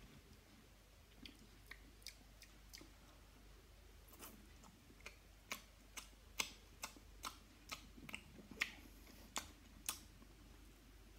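A person eating straight from a plate with the mouth, no cutlery: a faint string of irregular wet mouth smacks and chewing clicks, coming thicker and faster in the second half.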